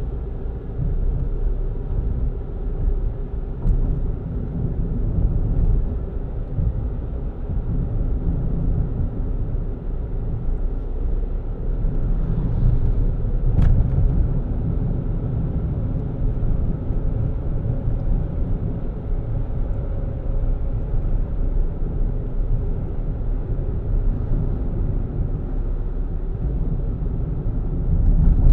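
Car driving along a paved road, with a steady low rumble of engine and tyre noise and a single short click about fourteen seconds in.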